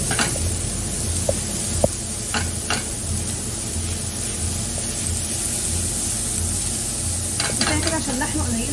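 Diced onions sizzling in hot oil in a frying pan while being stirred with a silicone spatula, with a few light knocks of the spatula against the pan in the first few seconds.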